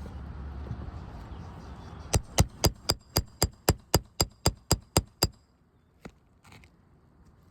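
Roofing hammer striking a steel nail puller in a fast, even series of about thirteen ringing metallic blows, roughly four a second, working it under the last roofing nail of a 3-tab shingle. A low rumble comes before the strikes, and there is one faint knock after them.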